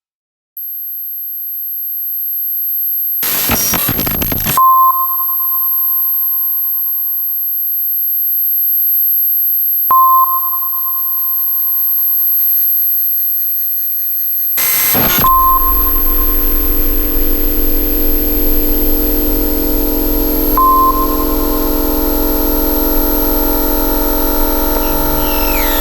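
Electronic soundtrack of pure synthesized tones: a ping near 1 kHz repeats about every five seconds, each one fading slowly, over thin steady high tones. Two short bursts of noise cut in, and about 15 seconds in a low drone comes in underneath and stays.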